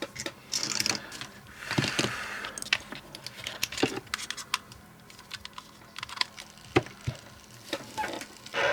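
Irregular light clicks and taps with a few brief rustles: small electronic parts and hand tools handled on a workbench.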